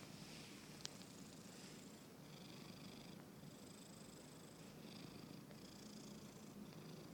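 A domestic cat snoring softly in deep sleep, with a faint hissing breath repeating about every second or so.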